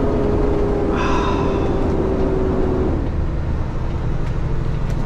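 Semi truck's diesel engine running at high revs inside the cab, with a deep rumble and a steady whine that drops slightly in pitch and stops about three seconds in. The automatic transmission is stuck, not shifting past sixth gear.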